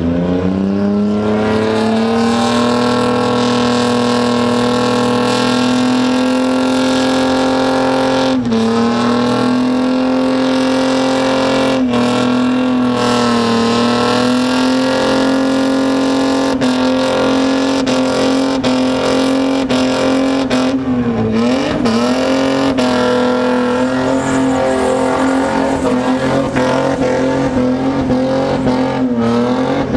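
Holden VN Commodore engine held at high revs through a sustained burnout, the rear tyres spinning in clouds of smoke. The note stays steady and high, with brief dips in revs about 8 and 13 seconds in, again around 21 seconds and near the end.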